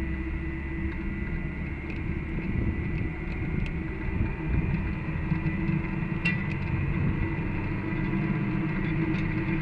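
Off-road vehicle running along a rough trail: a steady engine and drivetrain rumble with a constant whine above it, and a few light clicks or rattles.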